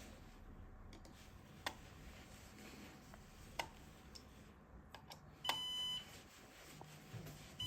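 An electronic beeper sounding twice, each a short, steady high beep of about half a second, the second one about two seconds after the first. A few faint sharp clicks come before the beeps.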